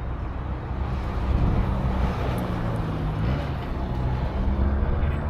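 Road traffic: a steady low rumble of motor vehicles, with an engine's tone shifting and rising in pitch around the middle.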